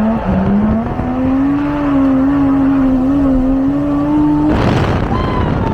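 Toyota 1JZ straight-six engine pulling under load, its note climbing steadily, then a short rush of noise about four and a half seconds in as the engine note breaks off.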